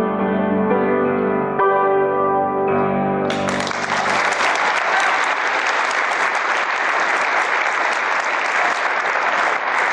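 Piano music on held chords, ending about three seconds in, then an audience applauding.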